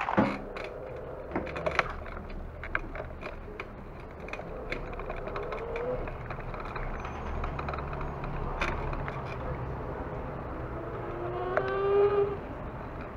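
Street ambience: a steady low traffic rumble with scattered clicks and rattles, and a short rising pitched tone near the end.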